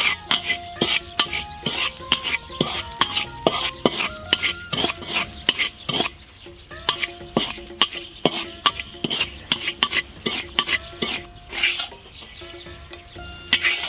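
Metal spatula scraping and stirring dry salt around a large iron wok, a fast run of rasping strokes about two to three a second, as the salt is dry-roasted.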